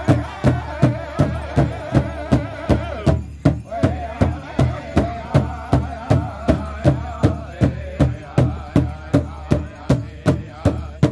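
Powwow drum group: several singers in unison over a big drum struck together in a steady beat, about two and a half beats a second.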